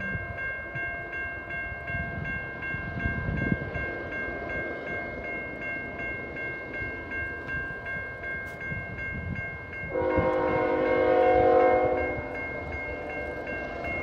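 Grade-crossing warning bell ringing steadily, then the approaching CN freight's lead GE Evolution-series locomotive sounds its air horn in one blast of about two seconds, ten seconds in, louder than the bell.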